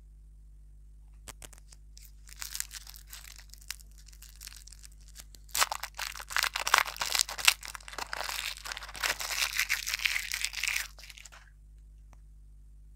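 Lollipop wrapper crinkling and tearing as it is peeled off a small ball lollipop by hand: soft, scattered rustling at first, then about six seconds of loud, dense crinkling that stops suddenly once the wrapper is off.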